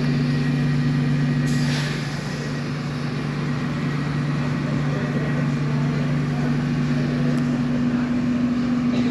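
Train standing at a station platform, its equipment humming steadily in two low tones, with a brief hiss about one and a half seconds in.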